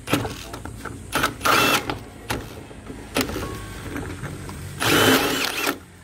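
Cordless Ryobi ONE+ drill turning a 2 3/4-inch hole saw forward through a PVC downspout channel. It runs in several short bursts of motor whine and cutting, the longest and loudest near the end.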